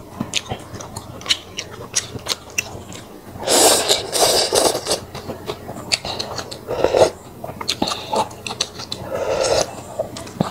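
Close-miked eating of fish porridge with bitter herbs: wooden chopsticks and a metal spoon click against a glass bowl, with slurping and chewing. The loudest slurping comes about three and a half seconds in, with shorter bouts near seven and nine seconds.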